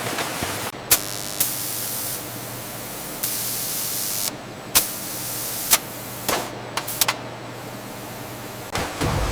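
Factory machinery running with a steady low hum, broken by two bursts of high hissing and several sharp clicks.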